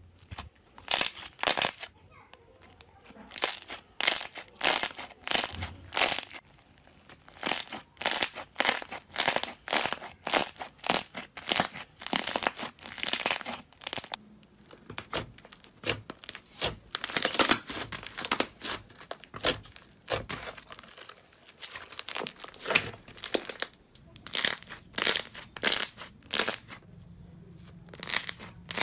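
Hands pressing and squeezing slime against a tray, giving repeated short crackling bursts as trapped air is pushed out, about one to two a second, in runs with brief pauses.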